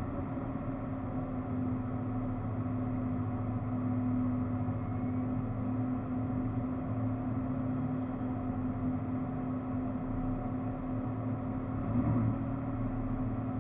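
A 4x4's engine running steadily while driving off-road, with a brief rise and fall in pitch about twelve seconds in.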